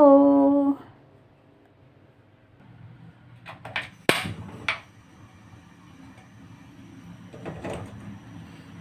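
Kitchen handling sounds: a few sharp clicks about three and a half to five seconds in, the loudest near four seconds, then a stainless steel pan set down on a gas stove burner near the end, over a low steady hum.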